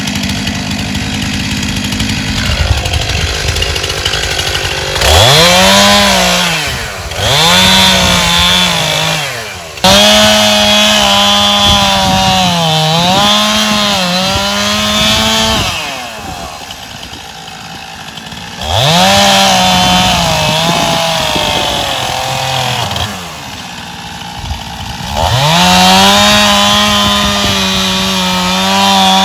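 Stihl two-stroke chainsaw idling, then revved to full throttle about five times as it cuts through hazel stems. The pitch sags under load during the cuts, and the engine drops back to idle between them.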